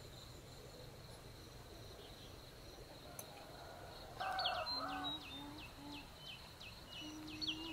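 A high, steady insect drone, then from about halfway a bird calling in a quick series of short falling chirps, a few a second, with a few short low calls underneath.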